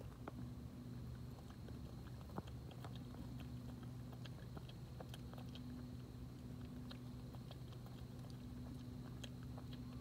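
Opossum crunching and chewing food, a run of irregular crunches and clicks, with one sharper crunch about two and a half seconds in, over a steady low hum.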